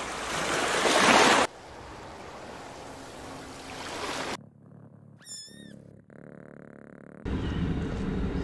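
Surf washing in small waves, then a steady wash of water that cuts off about four seconds in. A single short warbling animal call follows in near quiet, and near the end a louder, rougher stretch of low rumbling and rustling begins.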